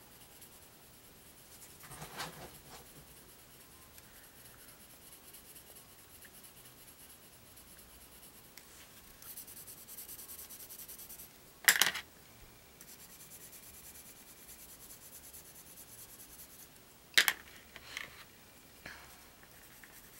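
Staedtler Noris Club coloured pencil rubbing and scratching on smooth opaline card as colour is laid down and blended, with a stretch of brisker scribbling about halfway through. A few sharp knocks, the loudest just past the middle and again near the end.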